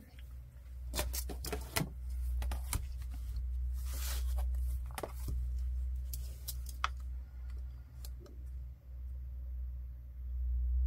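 Paper and craft materials being handled on a worktable: scattered light rustles and clicks over a steady low hum.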